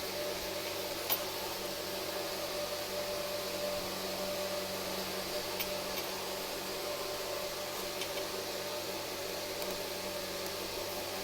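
A steady mechanical hum over a soft hiss, like a fan or motor running, with a few faint light clicks, the clearest about a second in.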